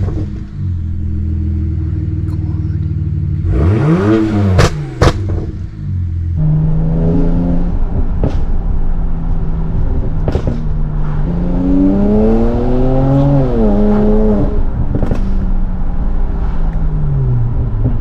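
BMW 335i's N54 twin-turbo straight-six running at idle, with its vacuum lines freshly replaced to cure a rough idle; the owner judges it smoother. It is blipped once, a quick rev up and back down about four seconds in, followed by a couple of sharp clicks. Later it is revved more slowly up and back down.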